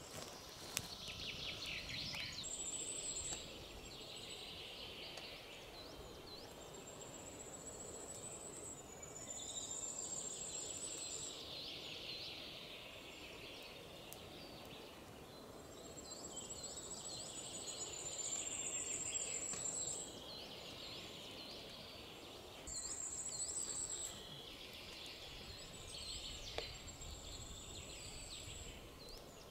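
Woodland songbirds singing: a high, thin trill about a second or two long comes again every few seconds over a busier chorus of chirps. A small campfire crackles with an occasional faint snap.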